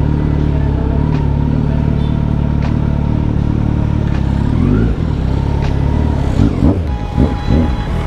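Kawasaki Z900 inline-four running through an aftermarket muffler with the stock breadbox pre-chamber removed: it idles steadily, rises briefly in pitch about five seconds in, then is blipped several times in quick succession near the end.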